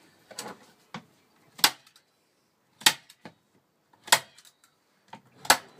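Hand staple gun fired four times, sharp snaps a little over a second apart, fixing a strip of waterproof material to the back of a nest box.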